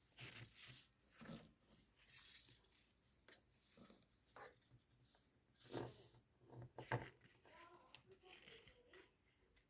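Faint, irregular rustling, crackling and clicking from something being handled, with a couple of sharper clicks near the middle.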